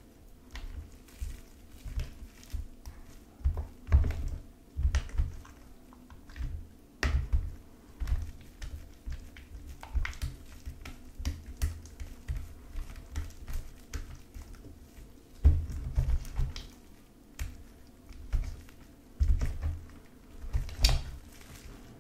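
Sticky, stringy blue slime being stirred, lifted and stretched with a wooden craft stick in a plastic tray. It makes irregular wet clicks and small pops, mixed with frequent soft low thumps.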